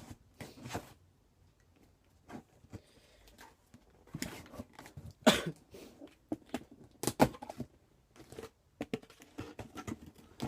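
Cardboard shipping box being handled and opened by hand: an irregular run of scrapes, taps and knocks, loudest about five and seven seconds in.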